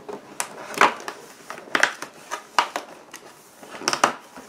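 Cardboard and paper packaging rustling and crinkling in short bursts as a door of a cardboard advent calendar is opened and the small boxed item inside is taken out.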